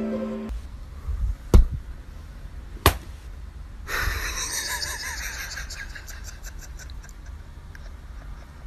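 Light mallet-percussion music stops half a second in, leaving faint room noise with a low hum, two sharp clicks about a second apart, and a brief rise in hiss about four seconds in.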